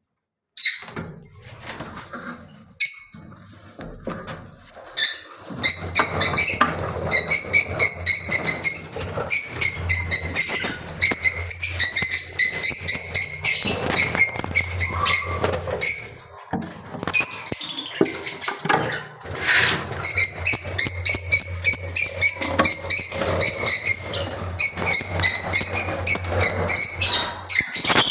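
A flock of lovebirds chirping and chattering in fast, dense, high-pitched calls that build up after a few seconds and carry on almost without a break. A steady low hum runs underneath.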